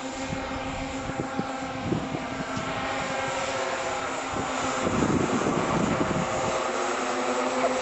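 Electric motors and propellers of a large radio-control scale Staaken R-series WWI bomber, a steady propeller hum. It gets louder as the model passes overhead about five seconds in.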